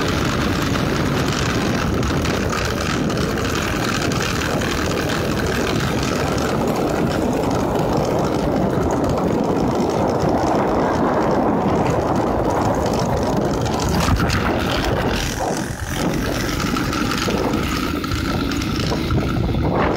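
Wind rushing over a phone's microphone on a moving motorcycle, with the engine running underneath, a steady dense noise throughout.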